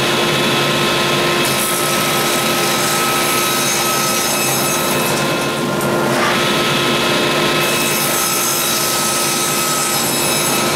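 Table saw running steadily while its blade crosscuts a block of 3/4-inch oak. The cutting noise rises over the steady motor twice: from about a second and a half to five seconds in, and again from about seven and a half seconds in until near the end.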